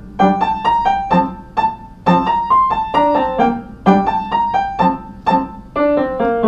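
Piano played with both hands: a melody of separate notes over lower accompanying notes, in short phrases with brief breaks between them.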